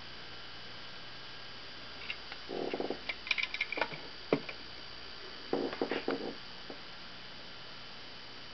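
Lehmann tinplate rooster-and-rabbit flywheel toy being handled: two short bursts of tin rattling and clicking, about two and a half and five and a half seconds in, the first ending in a sharp click. A steady low hum runs underneath.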